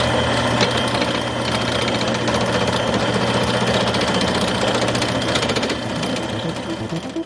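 Wood lathe spinning an ebony pen blank while a turning tool cuts it: a steady motor hum with a rapid, rattling scrape. It cuts off near the end.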